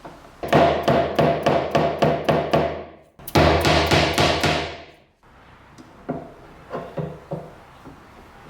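A quick run of about nine evenly spaced metallic taps with ringing, about four a second, then a longer ringing sound that fades away, then a few softer taps near the end.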